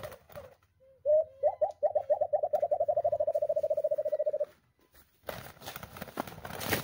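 White-eared brown dove call: a long string of short low hoots that starts with a few spaced notes and speeds up into a fast, even run, lasting about three and a half seconds. Then about five seconds in, a stretch of wing flapping and rustling from snared doves.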